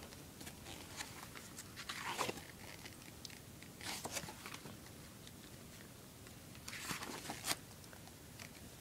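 Pages of a photo book being turned by hand: three brief paper swishes, about two, four and seven seconds in, with small handling clicks between them.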